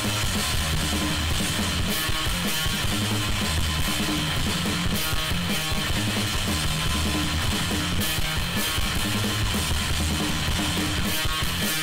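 Loud rock music with guitar and a drum kit keeping a steady beat.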